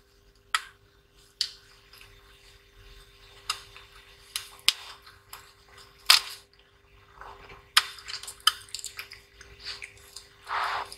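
Scattered light clicks and taps of a hand screwdriver working the screws that hold a laptop motherboard in its chassis, with a brief rustle near the end. A faint steady hum sits underneath.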